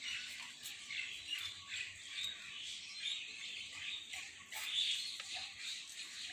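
Birds chirping and calling, with a few faint clicks and scrapes as ash is raked out from the base of a dung-fired water heater.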